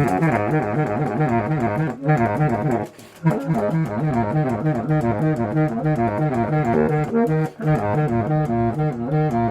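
Saxophone playing a fast, rhythmic riff of short repeated notes with a pulsing low line, breaking off briefly about three seconds in before picking up again.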